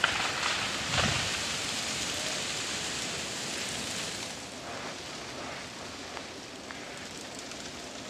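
Freezing rain falling steadily as a continuous hiss on ice-coated trees and crusted snow, easing slightly about halfway. Two sharp knocks, about a second apart, near the start.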